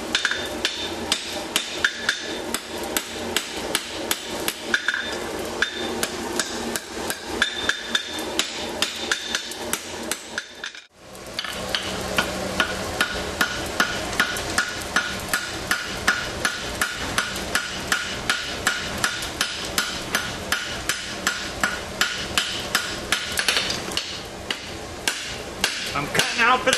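Hand hammer forging a red-hot steel tong blank on an anvil, shaping the jaw and boss of a quarter-inch tong. Steady blows come at about two to three a second, each with a short metallic ring, and there is a brief break near the middle.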